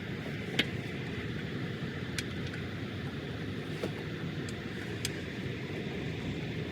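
Steady low outdoor rumble with four short, sharp clicks, the loudest about half a second in, from tools being worked on the oil filter.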